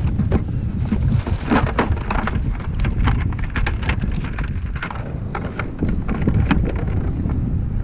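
Wind buffeting the microphone, with irregular clicks and knocks throughout.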